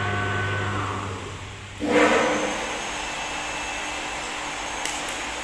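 Machine noise from a CNC glass cutting table: a motor hum stops just under two seconds in. At once a sudden loud rush starts and settles into a steady whirring hiss.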